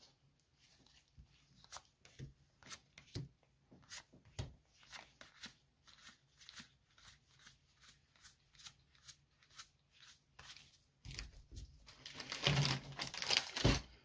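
Magic: The Gathering trading cards being flicked through one at a time, a sharp card snap about twice a second. Near the end a louder, denser stretch of rustling and handling.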